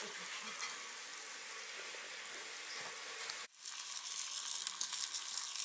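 Flour-dredged pink salmon steaks sizzling and crackling in a frying pan. The sizzle cuts out for a moment about three and a half seconds in, then comes back a little louder.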